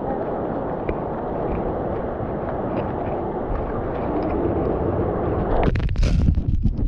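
Steady, muffled rushing of shallow surf washing around jetty rocks, with a run of sharp crackles and knocks near the end.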